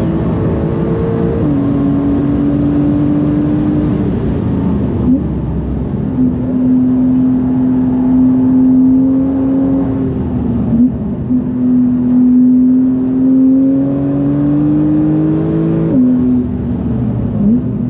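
Porsche 991.2 GTS's twin-turbo flat-six, upgraded with big turbos, pulling hard at high speed: long steady runs that climb slowly in pitch, broken several times by gear changes where the pitch steps down.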